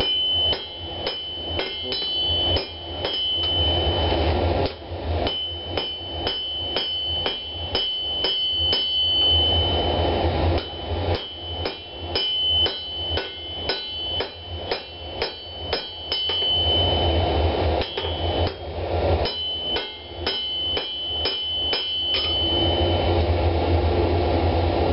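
Hand hammer forging a red-hot tomahawk head on a steel anvil: sharp blows about two a second, each ringing with a clear high tone, in runs with short pauses. The hammering stops near the end. A steady low hum runs underneath.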